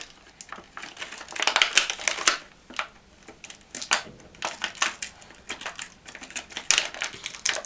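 Thin clear plastic packaging bag crinkling and crackling as it is picked open by hand, in several bursts of quick crackles.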